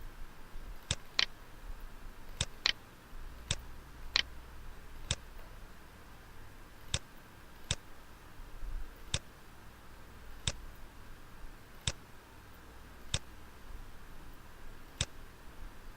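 Computer mouse clicking: about fourteen sharp separate clicks at uneven intervals, some in quick pairs like double-clicks, as points and tools are picked in CAD software.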